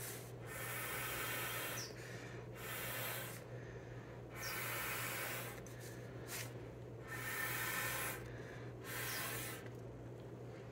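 Five rushes of air, each about a second long with short gaps between them, from a small hand-held air blower pushing wet acrylic paint across a Dutch pour. A faint steady low hum runs underneath.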